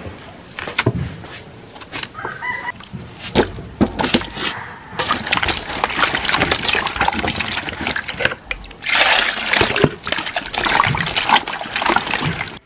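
Hands swishing and splashing peeled unripe saba bananas in a metal basin of water, rinsing them, from about five seconds in. Before that, scattered light clicks of a knife peeling a green banana.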